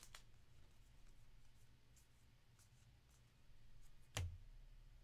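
Near silence with the faint rustle of trading cards being slid through by hand. One short, sharp tap comes about four seconds in.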